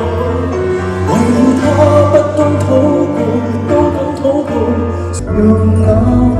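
A male singer singing live with piano and band accompaniment, the voice gliding over held low bass notes.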